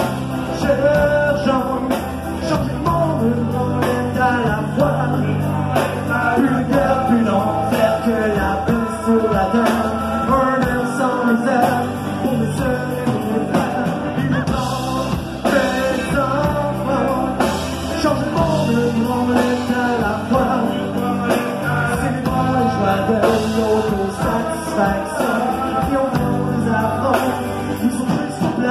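Rock song played by a band, with singing over it.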